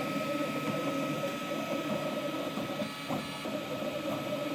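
3D printer running a print: stepper motors buzzing and whirring in changing patterns over a steady high whine.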